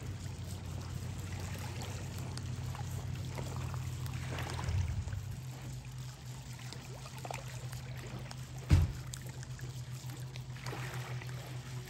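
Small lake waves lapping and splashing against shoreline rocks, a steady watery wash, with a single dull thump about nine seconds in.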